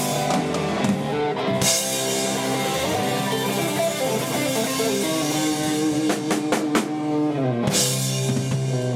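Live rock band playing an instrumental passage: electric guitar holding long notes over a drum kit, with cymbal crashes.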